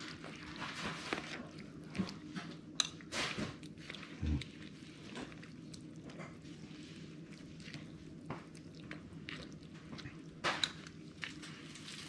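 A metal spoon stirring rice porridge in a glass bowl: soft wet squishing with scattered clinks and scrapes against the glass, a few sharper clinks around three to four seconds in and again near ten seconds.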